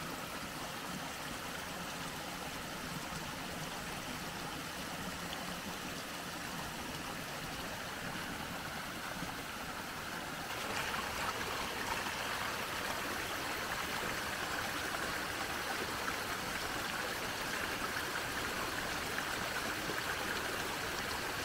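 Rain runoff flowing steadily through a muddy gully and spilling through a log leaky weir: a continuous rushing trickle of water that grows a little louder about halfway through.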